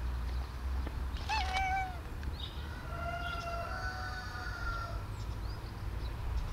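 Long-haired black cat meowing, about a second and a half in: a short meow that rises and then holds its pitch.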